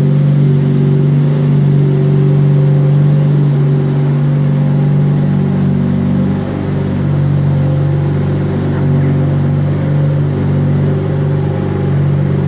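Lamborghini Murciélago LP640's 6.5-litre V12 idling steadily, an even, unchanging engine note with a slight dip about six seconds in.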